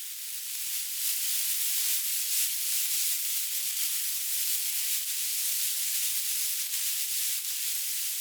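Snake hissing: one long, steady hiss, high and airy, with almost nothing in the low range.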